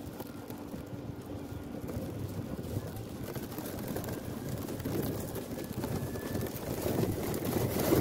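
Wind buffeting the microphone of a mobile phone hanging high under a flying kite, an irregular low rushing that grows louder toward the end.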